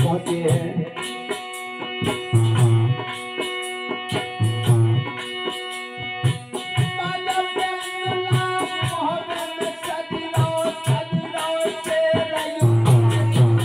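Instrumental interlude of Alha folk music: a hand drum beats a steady rhythm of low strokes under a held melody, with small cymbals jingling on every beat.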